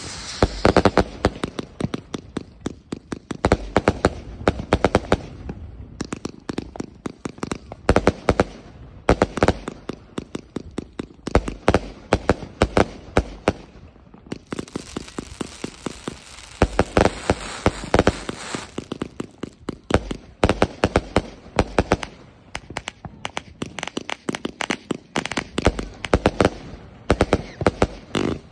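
A 180-shot consumer firework cake firing shot after shot: rapid volleys of sharp pops and bangs from launching and bursting shells, with crackling between them.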